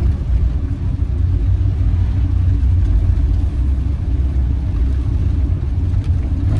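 Steady low rumble of a campervan on the move, engine and road noise heard from inside the cab.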